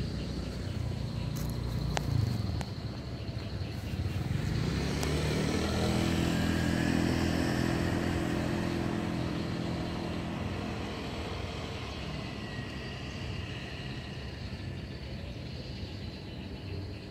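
Motor vehicle engine passing by, growing louder about four seconds in and then slowly fading away.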